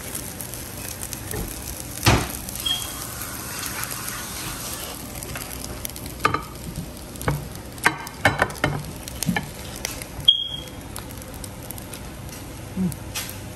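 Silicone spatula scraping and pushing fried rice out of a pan onto a serving platter: scattered short scrapes and taps, a quick run of them about eight seconds in and the sharpest about ten seconds in, over a steady hiss.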